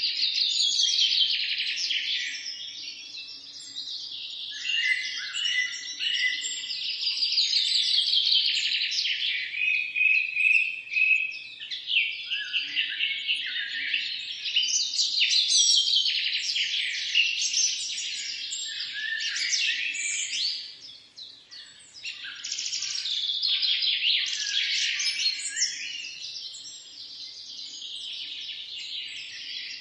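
Many songbirds chirping and singing at once in a dense, continuous chorus of quick high twitters and trills, with a brief lull about twenty-one seconds in.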